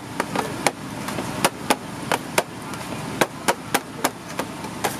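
Sharp chopping knocks from a utensil striking a board, irregularly spaced at about two or three a second, over steady background noise.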